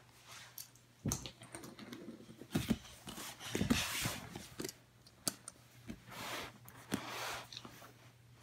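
Hands handling a mini die-cast toy monster truck and small plastic pieces: scattered light clicks and taps, with a few short soft swishes.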